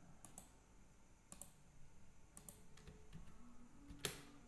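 Faint, scattered clicks of a computer mouse and keyboard as text is copied and pasted, with a sharper click near the end.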